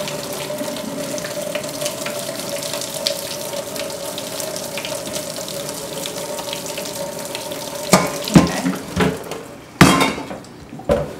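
Hot cooking water being poured off a pot of collard greens into a stainless steel sink, a steady splashing pour, as the first boiling water is drained from the greens. Near the end the pouring stops and the enamel pot and its lid clank several times as the pot is set upright and handled.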